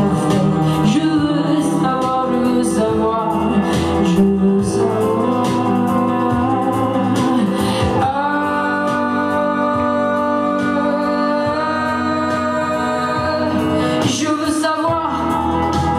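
Live pop performance: a woman sings into a handheld microphone over an electric guitar, with sharp percussive hits in the first half. From about eight seconds in, the music settles into long held notes.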